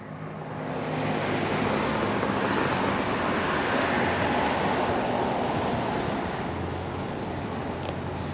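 Steady rushing noise of wind and street traffic picked up through the open car window, swelling about a second in and easing off near the end, with the car's low engine hum underneath.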